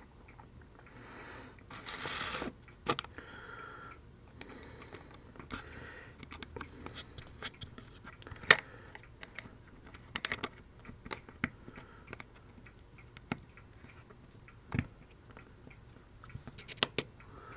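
Scattered light clicks and rustling from hands working a hobby component tester: fitting a capacitor into its test socket and pressing its test button. There is a sharp click about halfway through and a pair of clicks near the end.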